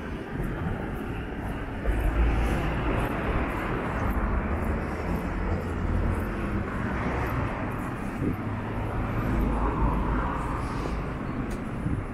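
City street ambience: a steady roar of road traffic with a low rumble, growing louder about two seconds in and swelling again near ten seconds.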